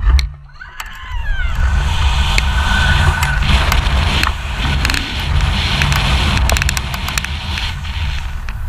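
Rushing wind buffeting an action camera's microphone as the jumper falls from the tower on a rope. It builds up about a second in, then holds as a steady rush with a heavy low rumble and scattered clicks.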